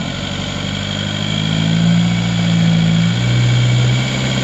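Engine of a lifted 4WD crawling up a rock step under load. The revs climb, then ease back to a lower steady note about three seconds in.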